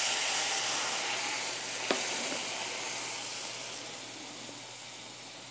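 Liquid poured into a hot skillet to deglaze it after searing shrimp, sizzling and hissing loudly in a burst of steam, then fading gradually as the pan cools under the liquid. A single short knock about two seconds in.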